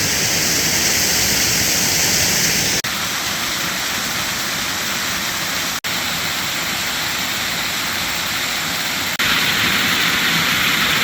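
Waterfall rushing in a steady roar of falling water, the creek flowing strongly after rain. The sound drops out for an instant three times at cuts.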